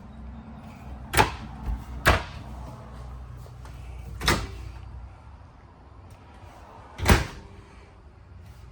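Camper kitchen cabinet doors being opened and shut: four sharp knocks spread over several seconds, over a faint low hum.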